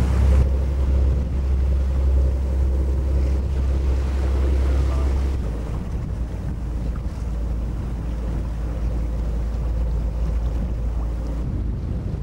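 Wind rumbling on the microphone aboard a sailing boat under way, over the steady wash of the sea. The heavy low rumble drops off suddenly about five seconds in.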